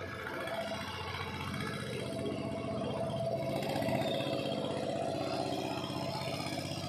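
An engine running steadily with a fast even pulse, growing a little louder towards the middle and easing off again.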